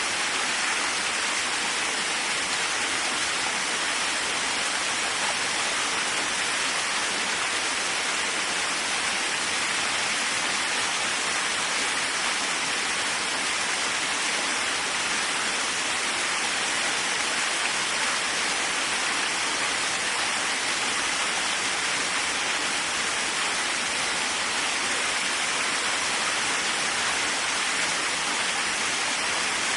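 Waterfall: water falling steadily in an even, unbroken rush, strongest in the middle and upper range with little deep rumble.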